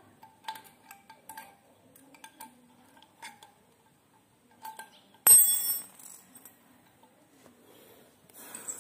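Small hand tools working on the plastic and metal parts of a Ka-band VSAT transceiver: scattered light clicks and ticks, then about five seconds in a sharp metallic clink that rings briefly.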